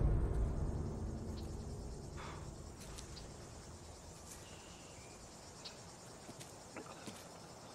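A low rumble fades out over the first two seconds, leaving quiet woodland ambience with insects chirping and a few faint ticks.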